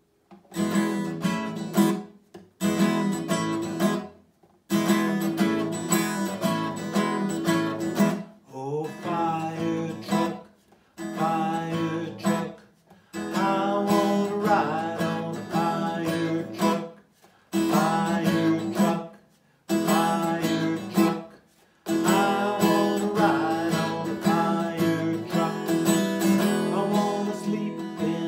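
Acoustic guitar strummed in chords while a man sings along, the playing and singing stopping in short breaks every couple of seconds.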